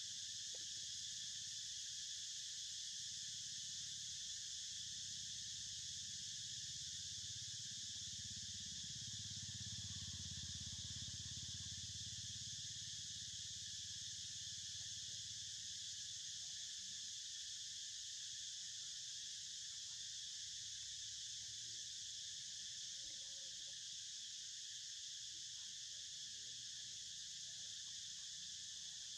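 Steady, unbroken insect chorus, a high even drone with no pauses. A faint low rumble sits underneath and swells slightly near the middle.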